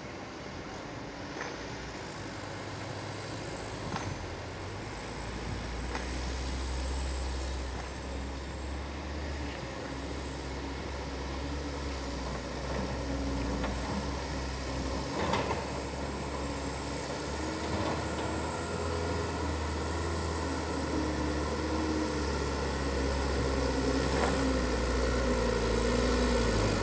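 Heavy vehicle engine running with a low rumble that slowly grows louder, with a few sharp clanks along the way.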